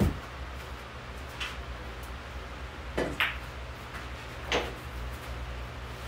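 Pool balls knocking and clicking on a pool table during a shot: a sharp hit at the start, then single clicks about a second and a half in, a quick pair around three seconds and one more near four and a half seconds. A steady low fan hum runs underneath.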